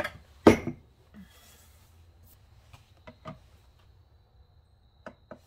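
Kitchen handling sounds as a plastic food container is set on a digital kitchen scale on the counter: one sharp knock about half a second in, then a few light taps and clicks.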